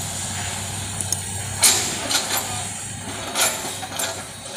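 Hydraulic excavator's diesel engine running with a steady low drone, with a few sharp cracks or knocks from the machine working, about a second apart.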